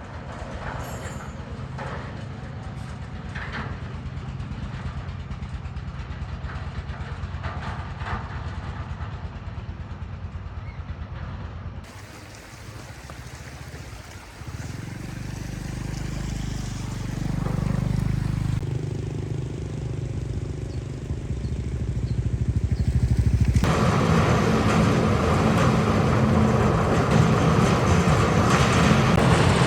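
An engine running steadily with an even low throb. The sound changes abruptly several times and is loudest and busiest in the last few seconds.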